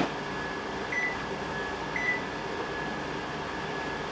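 Two short high beeps about a second apart from an electric oven's touch keypad as it is set to bake again, over a steady hum. A brief knock comes right at the start.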